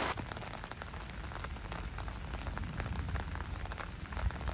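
Heavy rain pattering down as many separate drop ticks, with a low rumble underneath.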